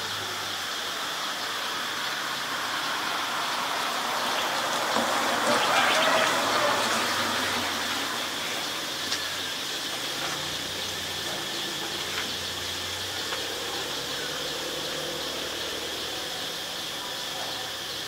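Outdoor ambience: a steady high insect drone over a rushing noise that swells and fades about five seconds in. The owlet itself is not heard calling.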